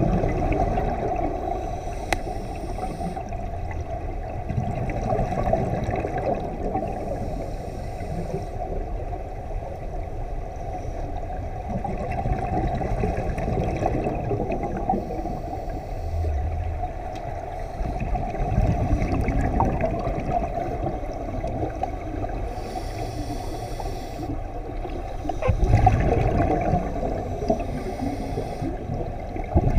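Muffled underwater bubbling and rumble of scuba divers' regulator exhaust, heard from under water, with several short, brighter bursts of exhaled bubbles a few seconds apart.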